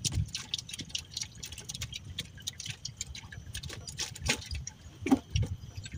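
Irregular light clicks and ticks, several a second, from close-up handling of fishing tackle and live shrimp bait as the shrimp is put on the hook.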